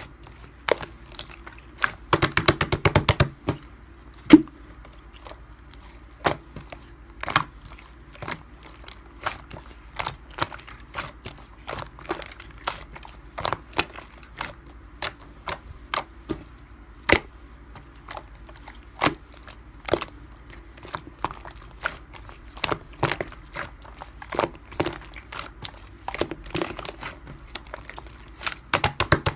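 Slime being squished and pressed by hand, making irregular sharp clicks and pops, with a quick flurry of clicks about two to three seconds in.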